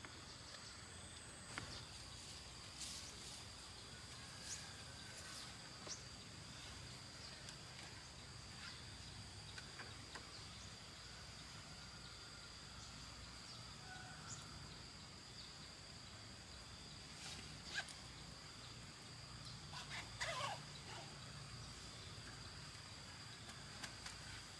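Faint rural outdoor ambience: insects chirring with a steady high-pitched drone, broken by a few scattered light clicks and knocks. The loudest clicks come about two-thirds of the way in and near the end.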